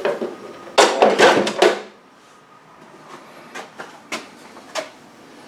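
Plastic ice bucket and freezer parts being handled as they come out of a side-by-side refrigerator's freezer. About a second in there is a burst of scraping and knocking, followed by a few light knocks.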